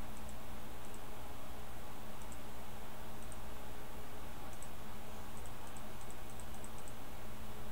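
Faint clicks of a computer mouse, scattered and often in quick pairs, with a run of them about two-thirds of the way in, over a steady electrical hum and hiss.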